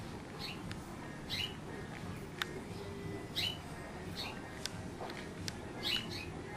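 A small bird chirping repeatedly: short, high, downward-sliding calls about once a second, over steady background noise.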